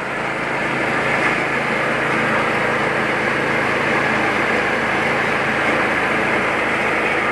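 Mini rice huller running steadily under load: a constant machine hum beneath a dense, even rattle and hiss of grain pouring through the huller and over its screen chute.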